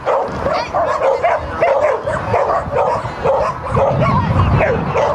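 A dog barking over and over in quick, high barks, about three a second without a pause.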